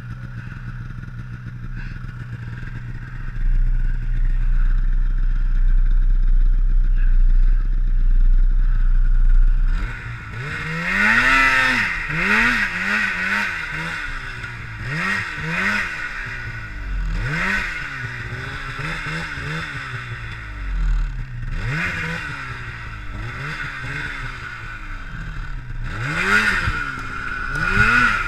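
Polaris Pro RMK Assault snowmobile's two-stroke engine running low and steady, then from about ten seconds in revved in a string of short throttle blips, each rising and falling in pitch. The sled is stuck in deep powder.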